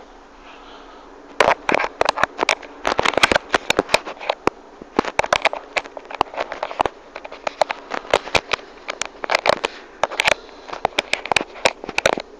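Rapid, irregular clicks and crackles start about a second and a half in and keep going, several a second. It sounds like handling noise from the phone's microphone as the phone is moved and rubbed against the window frame.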